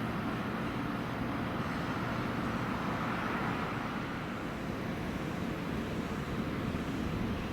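An electric train running into the station platform, a steady rumble of wheels and motors.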